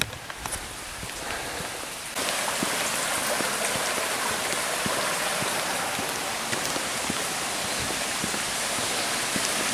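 A small stream running through a stone culvert beside a lane: a steady rush of water that comes in abruptly about two seconds in and holds even.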